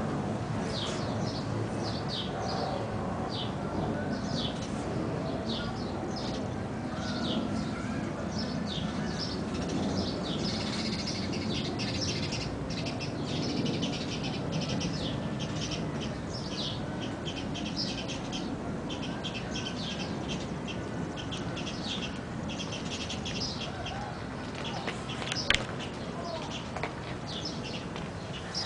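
Small birds chirping over and over in short, irregular bursts, over a steady low background hum, with a single sharp click about 25 seconds in.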